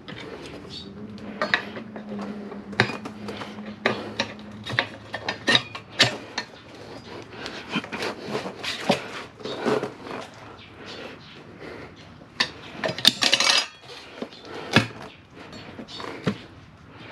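Metal tire levers clinking and scraping against a Honda NC700X motorcycle wheel rim as a tire is levered onto it by hand: irregular clanks and knocks, with a dense cluster of them about thirteen seconds in.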